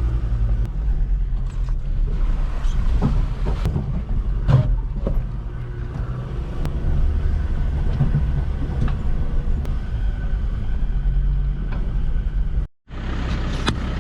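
A 4x4 driving on a rough dirt track: a steady low rumble of engine and tyres with scattered knocks and rattles from the bumpy ground. It cuts off abruptly near the end, then similar rumble resumes.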